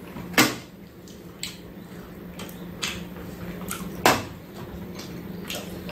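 Light knocks and clinks of a cup and dishes on a metal serving tray: two louder knocks, one just after the start and one about four seconds in, with fainter taps between, over a steady low hum.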